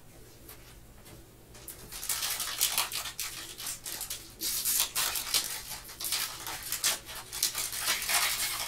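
Foil wrapper of a Panini Illusions basketball card pack crinkling and tearing as gloved hands open it, starting about two seconds in and running as a dense crackle.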